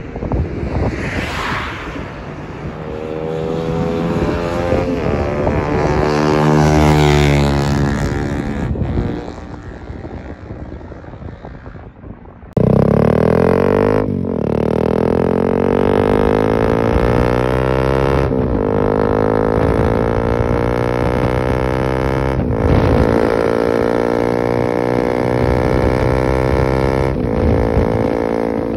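Bajaj NS160's single-cylinder engine running through an aftermarket Akrapovic full-system exhaust with bend pipe, being revved. The pitch climbs over the first several seconds and falls away. About twelve seconds in the sound jumps suddenly louder and holds at a high, fairly steady rev with small dips.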